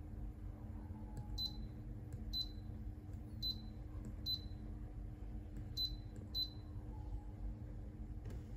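Bear air fryer's touch control panel beeping at each button press while the cooking time is set: six short, high beeps at uneven intervals.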